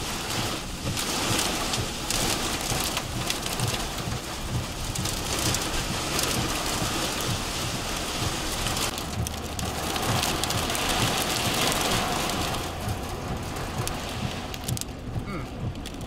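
Heavy wind-driven rain pelting a vehicle's windshield and body, heard from inside the vehicle as a dense, loud hiss that surges in waves with the gusts and eases slightly near the end.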